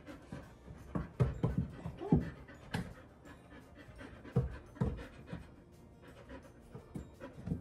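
Australian shepherd panting, with its paws thumping and clicking irregularly on wooden stairs as it backs up them, the loudest knocks a little after one and two seconds in and again between four and five seconds.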